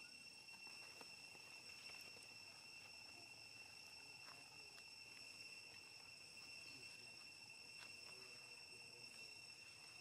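Faint, steady, high-pitched insect drone, with a few soft ticks scattered through it.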